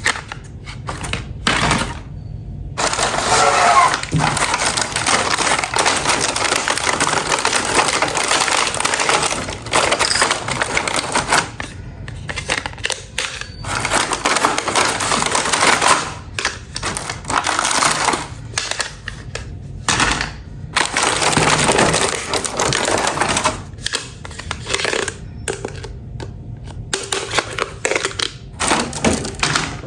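Hands handling plastic toys and their packaging: a dense crackling and clattering, with many small clicks, in stretches of several seconds broken by brief pauses.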